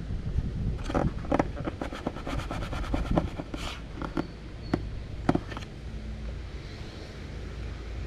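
Clicks and taps of hands working a smart video doorbell's plastic housing and mount, with a quick run of rapid clicks midway and a short rustle. A low wind rumble on the microphone runs under it.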